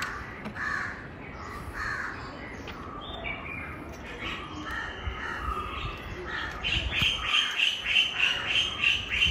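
Birds calling, crow-like caws repeated at irregular intervals, then a quicker run of short calls, about four a second, in the last few seconds.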